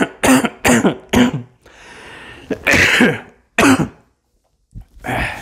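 A man coughing hard in a run of short hacks, a pause, then a few more coughs, the last one fainter near the end: a chesty cough from a heavy flu.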